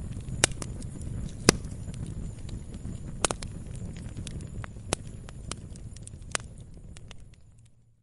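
Wood logs burning in an open fireplace: a steady low rush of flames with frequent crackles and a handful of sharp pops, the loudest about one and a half seconds in. The sound fades out near the end.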